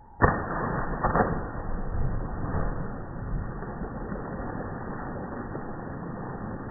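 A person plunging feet-first into a swimming pool: a sudden loud splash about a quarter second in, a second strong hit about a second in, then a steady rush of churning water, drawn out by the slow-motion playback.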